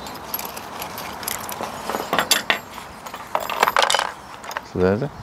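Small metal chainsaw tools clinking and rattling as a fabric toolkit pouch is opened and emptied onto a table, with rustling of the pouch and a string of short clicks and knocks.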